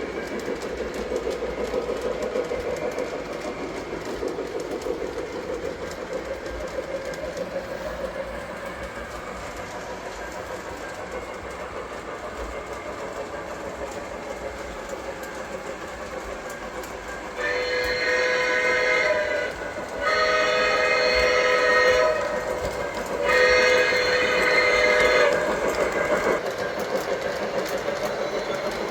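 Lionel Legacy 2-8-0 model steam locomotive running along its track, then its onboard sound system sounds three steam-whistle blasts, each about two seconds long, starting about 17 seconds in and louder than the running noise.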